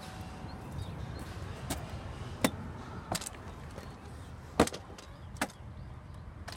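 Five sharp clicks and knocks spaced unevenly over a low steady hum.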